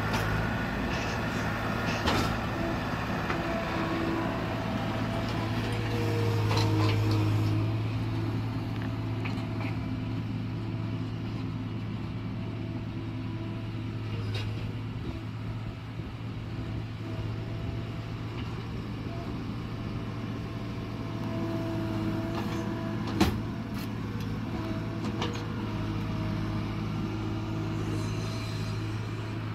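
Diesel engine of farm haying machinery running steadily, with a few sharp knocks, the loudest about three-quarters of the way through.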